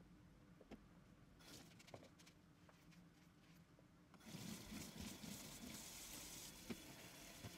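Kitchen mixer tap turned on about four seconds in, then water running steadily and faintly into a stainless steel sink. Before that, only a few faint clicks.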